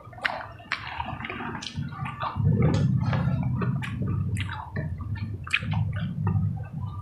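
Wet chewing and lip smacking of people eating with their hands: a quick, irregular string of sharp smacks and clicks.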